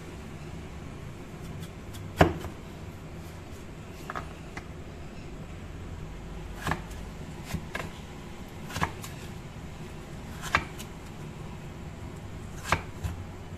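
Kitchen knife slicing raw peeled potatoes into thick wedges, the blade knocking on a wooden cutting board: sharp single knocks a second or two apart, the loudest about two seconds in.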